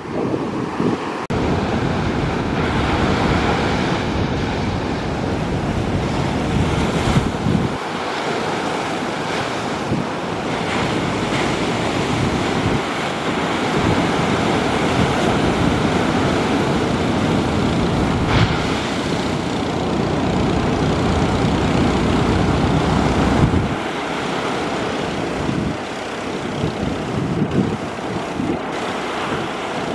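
Ocean surf breaking and washing up the beach, a steady rushing with wind rumbling on the microphone.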